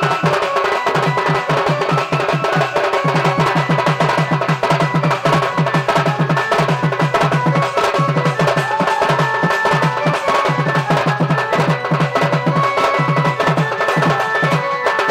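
Sambalpuri folk drumming: a large two-headed barrel drum (dhol) and small stick-beaten drums playing a fast, dense, driving rhythm, with steady high tones held above the drums.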